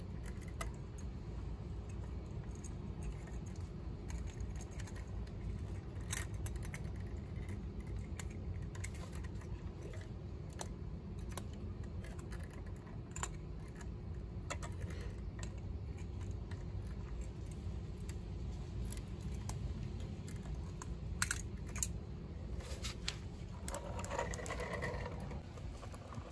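Small scattered clicks and ticks from the moving parts of a diecast toy garbage truck being worked by hand, over a steady low background rumble. A short higher-pitched sound comes near the end.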